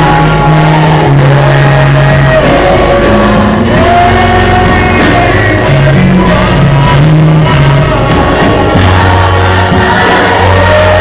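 Live gospel worship song, loud and amplified: a man sings lead into a microphone over band accompaniment with steady held bass notes, and a choir sings along.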